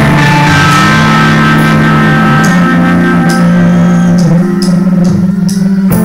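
Live rock band playing the instrumental opening of a song: electric guitars and drum kit, loud, with cymbal hits in the second half. The sound is harsh and distorted from a phone microphone too close to the stage amplifiers.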